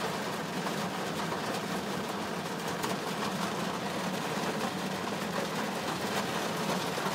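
Rain falling steadily on a car's windshield and roof, heard from inside the cabin as an even hiss with fine ticks of drops, over a low steady hum from the car.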